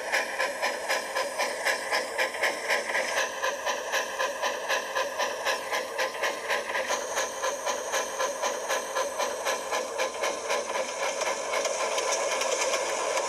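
Electric model train running around a track loop: a steady motor hum with a rhythmic pulse about three times a second, getting a little louder and more even near the end as the train passes close.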